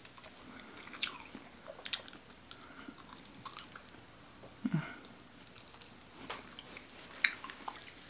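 Close-miked chewing of fried chicken and biscuits, with scattered soft wet smacks and clicks of mouths eating, and a short low hum about halfway through.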